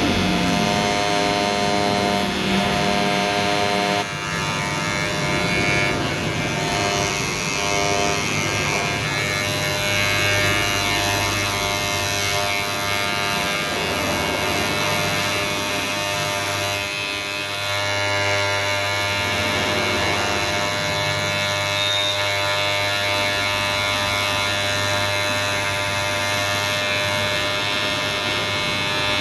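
Ubeator cordless electric hair clipper running with a steady buzz. Its tone shifts, with a brief dip in level, about four seconds in.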